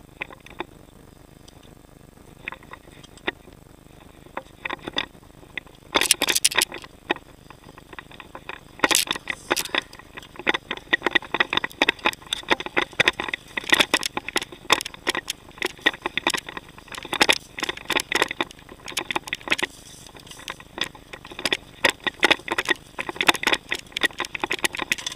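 Mountain bike on Michelin Country Mud knobby tyres rattling and clattering over a bumpy dirt and gravel track. There are only a few knocks at first, then from about six seconds in a dense, irregular run of sharp knocks, rattles and crunches.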